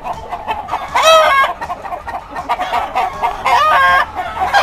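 A coop full of game chickens clucking and calling, with two louder calls standing out, about a second in and again at about three and a half seconds.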